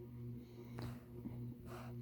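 Quiet room with a steady low hum and two short breathy sounds, one just under a second in and one near the end.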